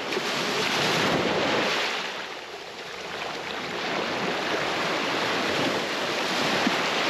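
Surf washing onto the beach: a wave surges for the first couple of seconds, eases off, then builds again and holds.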